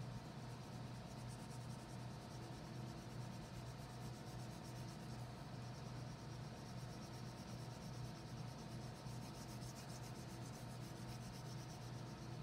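Wax crayon scribbling on paper in rapid back-and-forth shading strokes, starting about a second in, over a steady low hum.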